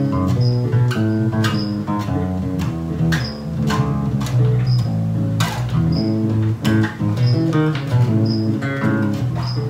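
Five-string Mayones Jabba electric bass playing a melodic Lydian line over the A major one chord: the major scale with a raised fourth (D sharp), a run of separately plucked notes.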